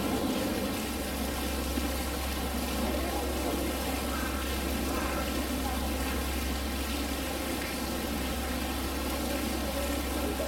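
Construction machinery engine idling steadily, a constant low hum.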